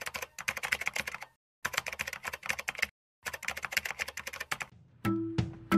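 Rapid typing on a computer keyboard in three bursts separated by short pauses. Near the end a music track comes in with a repeated plucked note.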